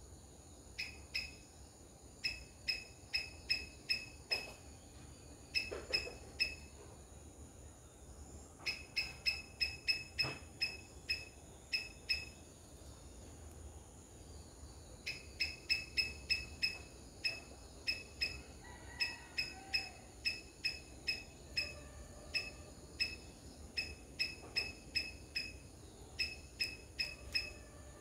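Repeated short, sharp chirping calls, about three a second, in runs of several seconds with brief pauses between them, over a faint steady high-pitched hum.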